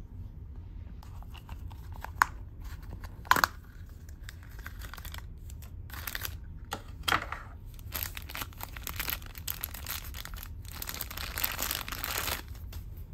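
Two sharp clicks in the first few seconds, then a thin clear plastic bag crinkling and tearing as it is pulled open. The crinkling is thickest near the end.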